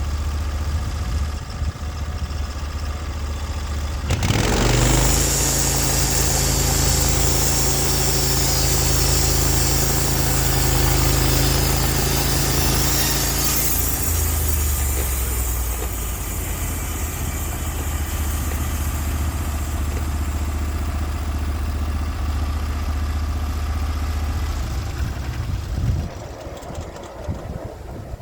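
Portable band sawmill's gas engine running. About four seconds in it picks up and the band blade cuts through the log with a loud hiss for about ten seconds. The engine then runs on steadily and its sound drops away near the end.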